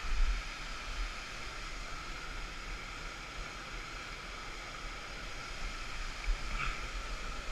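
Stream water flowing over granite slabs, a steady rush heard from right at the water's surface.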